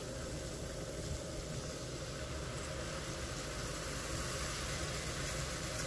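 Steady sizzling and bubbling of a flour-thickened pan sauce in a hot frying pan as wine is poured in.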